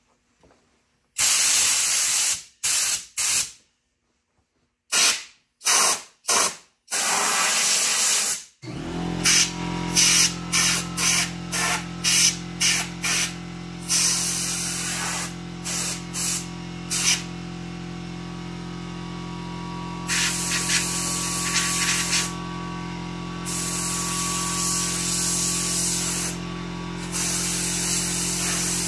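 Compressed air blown in repeated short hissing blasts to clean out a chainsaw bar. About nine seconds in, a steady motor hum starts and runs on underneath further blasts.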